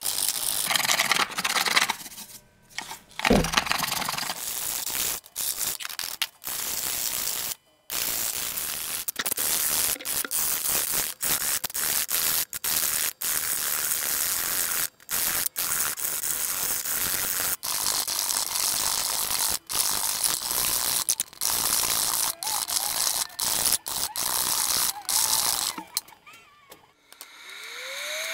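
Steel chisel paring and scraping walnut inlay wood, a dry rasping that is cut off and restarts many times in quick succession. Near the end a drum sander's motor starts and winds up to a steady hum.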